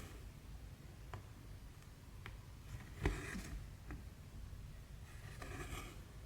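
Cross-stitching by hand: embroidery floss drawn through the fabric in two short rustling swishes, about three seconds in and again near the end, with a few light ticks of the needle between them.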